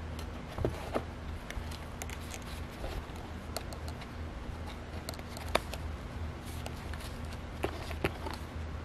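Light taps and rustles of a handmade junk journal being turned over and handled on a tabletop, over a steady low hum. The taps come a few at a time, and the sharpest one falls a little past halfway.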